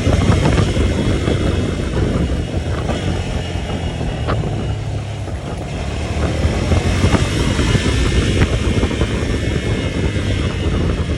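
Vehicle engine running under way over rough ground, with a steady drone under wind and road noise and a few sharp knocks from the bumps.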